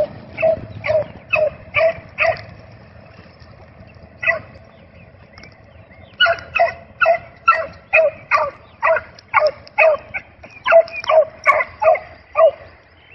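Beagle hound giving tongue on a rabbit track: short pitched barks at about two a second, a run at the start, a single bark in a lull, then a longer steady run.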